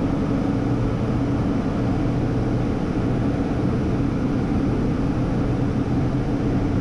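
Steady in-flight cockpit noise of a Hawker 800XP business jet: a constant rush of airflow and engine drone with a low steady hum underneath, unchanging throughout.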